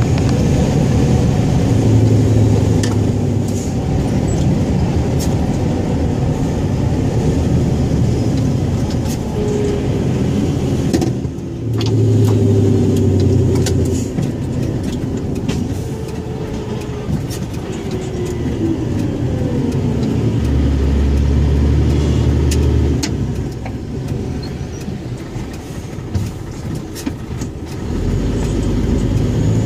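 Scania 114G 340 truck's 11-litre straight-six diesel running under way, its note rising and falling as it revs and changes load. There is a brief drop in engine sound about a third of the way in, and a quieter spell near the end.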